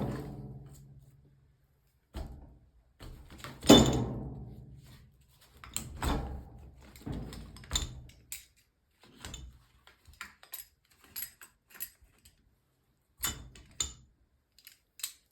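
Metal wrench clanking and clicking against brass plumbing fittings while a joint is being tightened: two loud ringing clanks, about four seconds apart at the start, then a string of lighter, irregular metal clicks.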